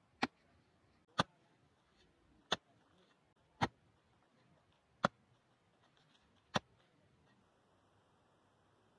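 Six sharp, isolated ticks, about a second to a second and a half apart, over a faint background.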